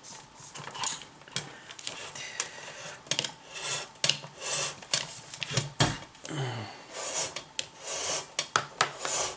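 A lamp cord being pushed and pulled through a floor lamp's base and shaft: irregular rubbing and scraping with light clinks of metal parts, and a heavier knock about six seconds in.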